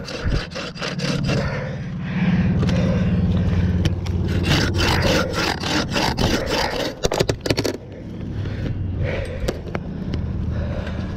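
Bow saw cutting through a fallen tree limb: rapid back-and-forth strokes of the blade rasping through the wood, over a steady low hum.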